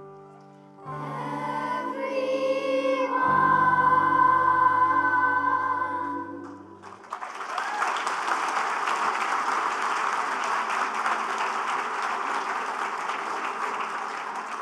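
Voices singing the last held chords of a worship song, which ends about halfway through, followed by steady applause from the congregation.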